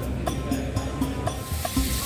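Background music with a steady beat and short repeating notes. A steady hiss joins it about one and a half seconds in.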